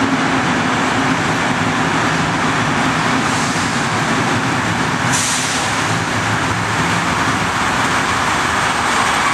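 NS Plan T (Mat'64) electric multiple unit pulling into a station platform and slowing: steady rumble with a low motor hum, and a sudden hiss about five seconds in.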